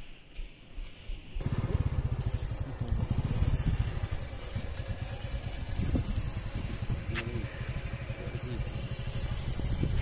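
Wind buffeting the microphone: a gusty low rumble with a faint high hiss, starting abruptly about a second and a half in after a quieter opening, with a single click about seven seconds in.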